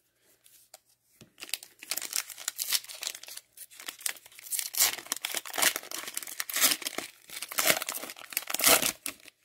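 A trading-card pack's wrapper being torn open and crinkled by hand, starting after about a second and a half of quiet and going on in irregular rustling bursts until just before the end.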